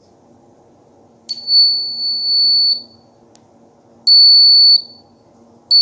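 Homemade door alarm's buzzer going off: a steady, high-pitched electronic tone sounding in three separate beeps, the first about a second and a half long and the next two shorter.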